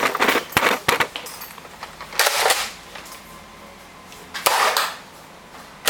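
Nerf foam-dart blasters in play: a few quick clicks and knocks in the first second, then two louder shots about two seconds apart.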